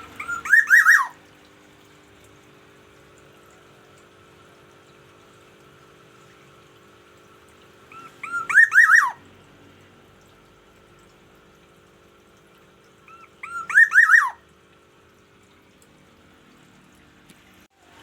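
Black-naped oriole (kepodang emas) giving three loud, fluting whistled calls, each about a second long and several seconds apart: the noisy morning call it uses to mark its territory. A faint steady hum runs underneath.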